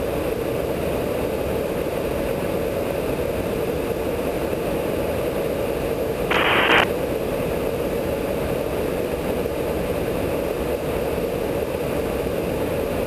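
Steady drone of aircraft cabin and airflow noise inside a KC-135 tanker's boom operator pod during air refueling. About six seconds in there is a brief, half-second hiss of radio squelch.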